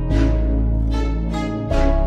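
Background music: a steady run of plucked-string notes over a deep held bass, with the bass note changing near the end.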